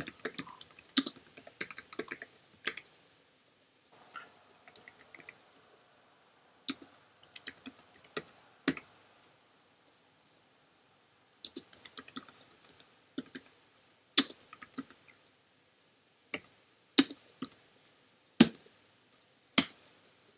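Typing on a computer keyboard: bursts of keystrokes with short pauses, including a quiet stretch of about two seconds near the middle, and a few louder single key strikes toward the end.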